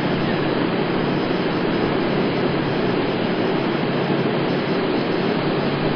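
Steady roar of distant jet airliner engines carrying across the airfield, even in level throughout.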